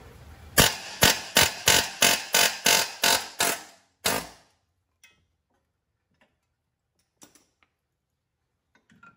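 Pneumatic air hammer fired in short bursts, about three a second for some three seconds, then once more about four seconds in. It is driving the lower ball joint stud out of the front steering knuckle until the knuckle lets go.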